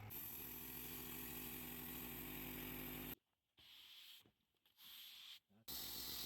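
Portable bandsaw sawmill's engine running steadily, with a high hiss on top. The sound cuts out abruptly a little past three seconds and comes back near the end.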